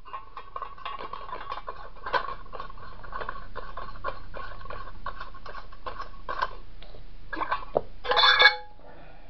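Tin coffee can, its plastic lid and a metal bicycle spoke being handled and fitted together: light metal clicks and clinks throughout, with a brief burst of louder clinks about eight seconds in.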